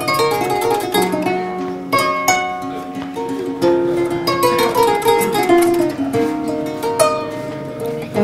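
Kora, the West African harp-lute, plucked in a flowing melody of ringing notes, with a run of falling notes around the middle.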